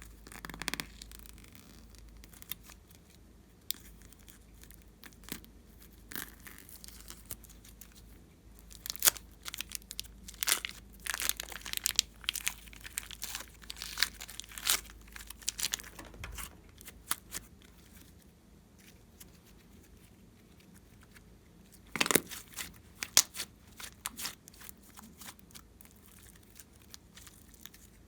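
Glossy slime being stretched and squished by hand, giving bursts of sticky crackling and popping clicks, with quieter stretches between them.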